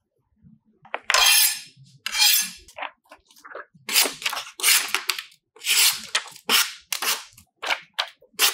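Printed wrapping paper crinkling and rustling as it is handled, in a run of sharp crackly bursts about two a second, starting about a second in.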